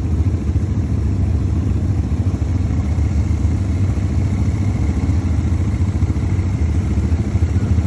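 ATV (quad bike) engine running steadily at a low, even rumble, with no revving.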